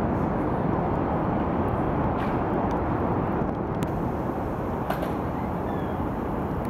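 Steady city ambience heard from high up on a skyscraper's open-air observation deck: a continuous, even noise of distant traffic and air with no distinct events, and a couple of faint clicks near the middle.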